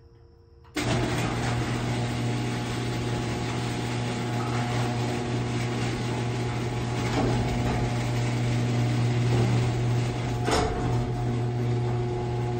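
A small machine runs steadily with a loud hum and hiss, switching on abruptly about a second in and cutting off at the end.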